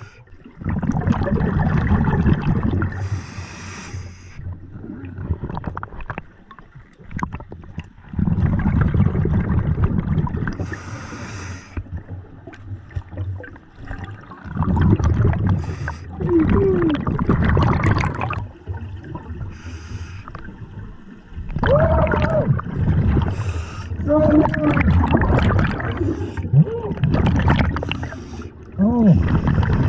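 Scuba diver breathing through a regulator underwater: long bubbling, gurgling exhalations about every six to seven seconds, with short hisses between them.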